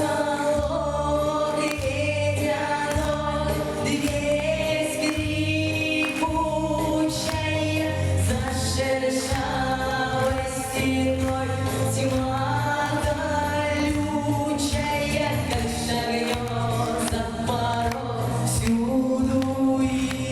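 A song sung by several voices in chorus over an instrumental accompaniment with repeating bass notes.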